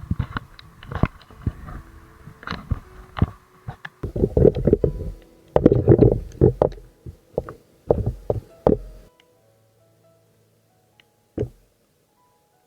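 Background music with sparse held notes, overlaid by a run of irregular knocks and heavy thuds that are loudest in the middle. The knocks stop about nine seconds in, leaving only faint music and two more single knocks.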